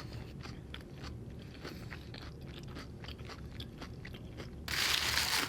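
Close-miked chewing of food, with small wet clicks and soft crunches from the mouth. Near the end there is a short, louder rush of breathy noise.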